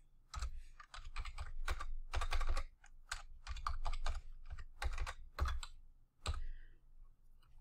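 Typing on a computer keyboard: an irregular run of key presses that stops a little after six seconds in.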